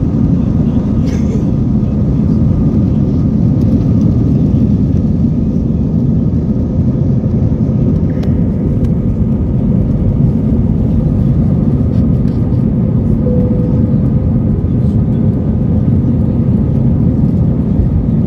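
Jet airliner heard from inside the cabin during takeoff: engines at takeoff thrust making a loud, steady low rumble with a faint steady whine, as the plane lifts off the runway and climbs.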